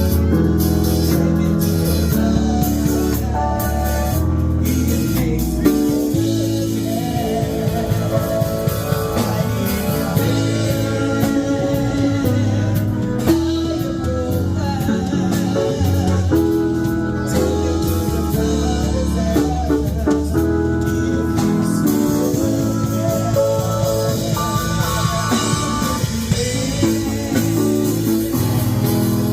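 Band music with guitar, bass and drums, and a singing voice over it.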